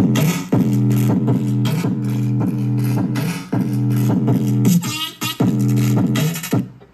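Music with a strong, regular beat playing through a JBL GO 2 portable Bluetooth speaker, cutting off suddenly near the end.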